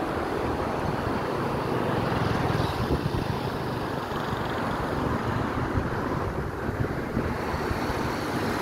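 Wind buffeting a phone's microphone in an uneven low rumble, over a steady wash of road traffic.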